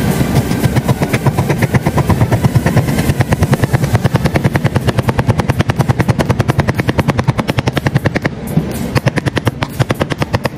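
Cleaver chopping rapidly on a plastic cutting board, mincing garlic: a fast, even run of sharp knocks, with a short pause near the end before it picks up again.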